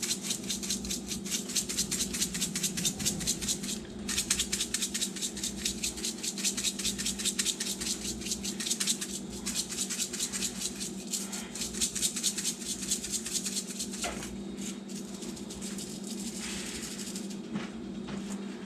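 Seasoning shaker being shaken rapidly and repeatedly over chicken, a quick dry rattle of spice granules in a plastic container that thins out near the end. A steady low hum runs underneath.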